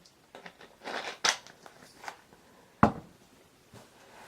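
Trading card box and pack packaging being handled and opened: short scattered rustles and clicks, the loudest a sharp click a little under three seconds in.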